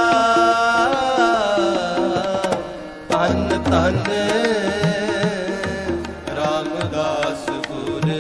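Sikh shabad kirtan: a devotional melody sung in long held and sliding notes over tabla.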